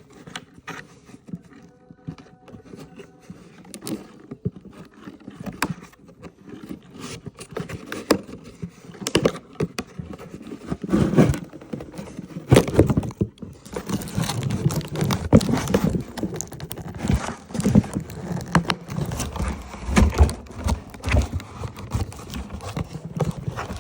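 Toy packaging being handled and pulled at while it is opened: a long run of irregular clicks, knocks and rustles, busier and louder from about halfway through.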